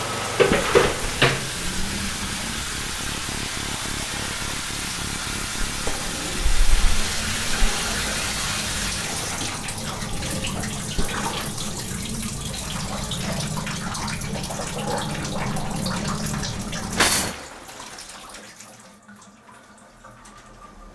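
Shower water running steadily, with a low thump partway through. The water cuts off suddenly near the end, leaving a much quieter room.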